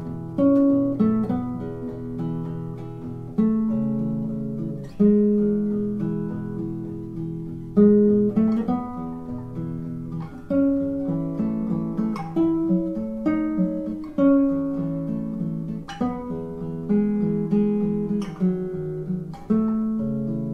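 Solo classical guitar, a 2005 Manuel Contreras II concert guitar, played fingerstyle: plucked notes and chords, each ringing and fading before the next sharp attack.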